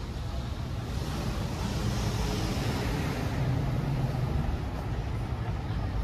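Road traffic noise: a vehicle goes past, with the hiss swelling about two seconds in and a low rumble peaking around four seconds.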